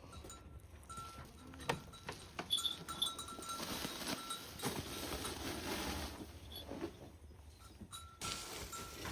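Livestock moving about, with scattered clinks and a bell-like tone that comes and goes.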